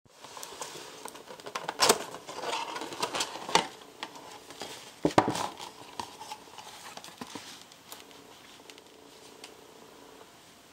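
A white paperboard bakery box being opened and handled, rustling with several sharp taps and clicks over the first five seconds, then quieter handling noise as a clay bun is lifted out.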